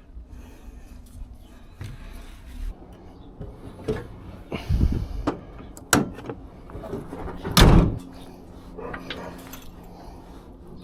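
A series of irregular knocks and clunks, the loudest about two-thirds through, over a faint steady hum.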